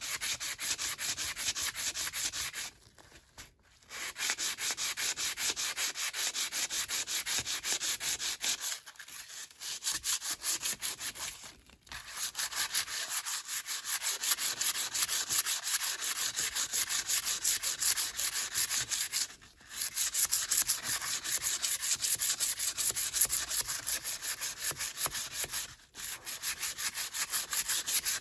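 Abrasive hand-sanding or scrubbing on the rusty metal of a Snap-on T-handle. It goes in quick, even back-and-forth strokes, with several short pauses.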